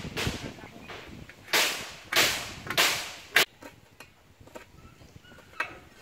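Small kitchen knife working on a steel plate while cutting shallots and chillies: three short swishing strokes between about one and a half and three seconds in, then a sharp click of the blade on the plate, then a few light taps.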